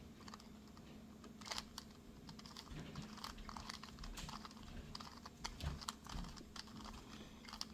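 A 2x2 Rubik's cube being turned by hand through an OLL algorithm: faint, irregular plastic clicks of the layers snapping round, a few louder than the rest.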